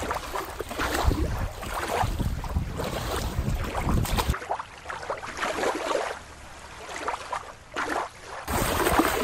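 Beach surf and wind, with wind buffeting the microphone. The sound drops quieter about four seconds in and comes back near the end.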